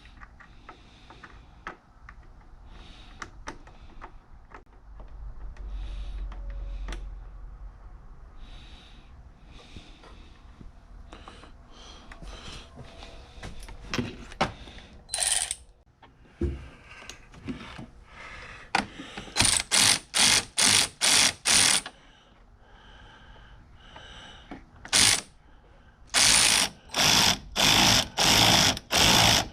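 Ratchet wrench clicking through repeated strokes on the vise's mounting bolt, after a stretch of faint tool handling and small clicks. About two-thirds through comes a quick run of about six strokes, and near the end a steady series of louder strokes starts.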